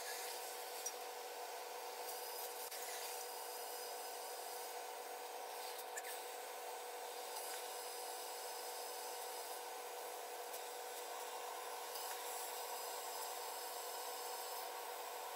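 Oxy-fuel gas cutting torch running steadily as it cuts a circle out of a steel wheel centre, guided by a homemade circle cutter: a steady hiss, with a couple of light clicks.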